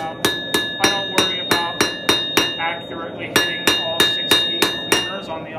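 Hand hammer striking red-hot 3/8-inch square steel bar stock on an anvil, about three to four blows a second, each with a ringing anvil tone, rounding out the tapered end as the bar is turned. The blows stop for under a second midway, then carry on.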